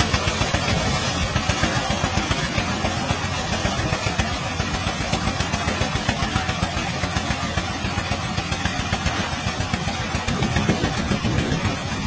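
Small engine of a compact walk-behind corn harvester running steadily under load, with a fast, even pulsing beat.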